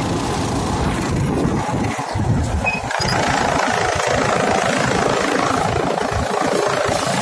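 Kubota B2441 24 HP diesel compact tractor running under load, driving a chaff cutter that chops dry crop stalks as they are fed in. The sound is loud and steady and grows fuller about three seconds in.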